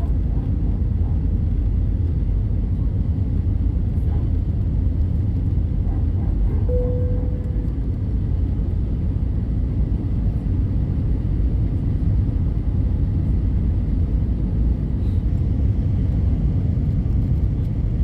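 Steady low-pitched cabin noise inside an Airbus A320-200 in flight: engine and airflow noise heard from within the passenger cabin. A brief tone sounds about seven seconds in.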